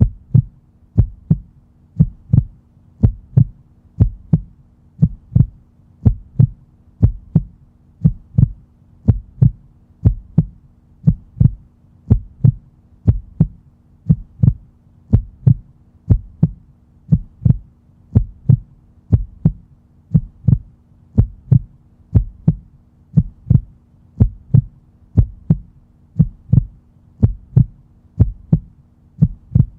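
Heartbeat sound effect: a steady lub-dub, low double thumps repeating about once a second over a faint steady hum.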